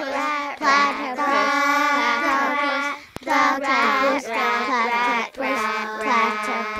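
A child singing, held notes in phrases with short breaks between them.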